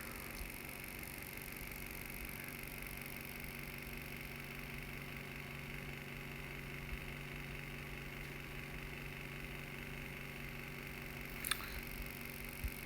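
Steady faint hum and hiss of room tone, with a brief click about eleven and a half seconds in.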